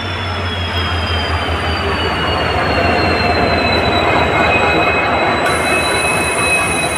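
Train running in along the platform: a steady loud rumble of locomotive and wheels, with high thin squeals that slowly fall in pitch.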